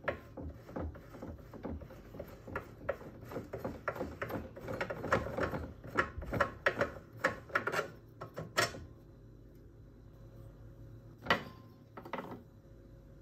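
Clicking and knocking of a lawnmower's toothed drive pulley and belt being worked off their shafts by hand. A dense run of sharp clicks for most of the first nine seconds, then two sharper clicks near the end.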